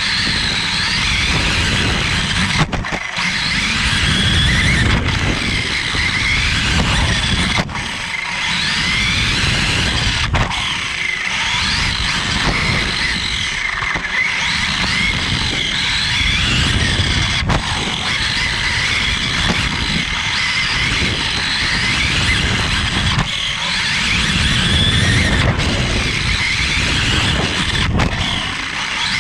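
Onboard sound of a Team Associated 1/10-scale 4WD electric off-road buggy racing on dirt. The motor and drivetrain whine rises and falls in pitch with the throttle over a steady rumble of the tyres and chassis on the track, broken by a few very brief gaps.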